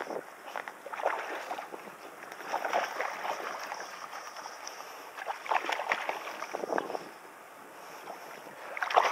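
A hooked lunker bass thrashing and splashing at the water's surface, in about four bursts of splashing with the loudest near the end.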